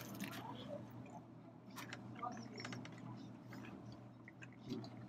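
A person chewing a mouthful of crisp-crusted salmon quesadilla, with scattered faint mouth clicks over a low steady hum.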